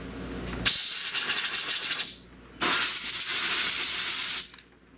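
Two blasts of compressed air from a blow gun, each a loud hiss of about a second and a half to two seconds with a short pause between, blowing out an A/C service valve so the refrigerant leak detector doesn't give a false alarm.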